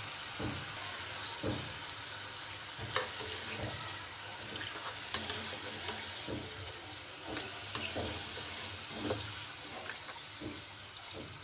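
Thin potato chips deep-frying in hot oil in a wok: a steady sizzle as the chips finish crisping. A few light clicks and scrapes come from a wire skimmer lifting them out.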